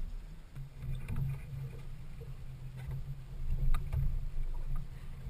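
Low, uneven rumble aboard a small fishing boat on the water, with a few faint clicks and taps.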